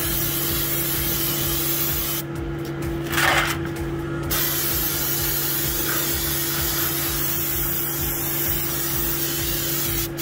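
Steady hiss of a spray cleaning around a forklift drive-unit gearbox. The spray cuts off briefly twice, between about two and four seconds in, with a short louder scrape just after three seconds. A steady low hum runs underneath.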